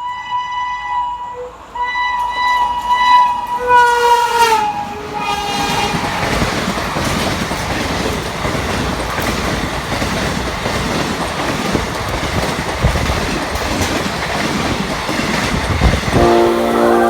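WAP-5 electric locomotive sounding its horn in two long blasts, the second dropping in pitch as the locomotive passes. The coaches then run past with a steady rumble and wheel clickety-clack. Music comes in near the end.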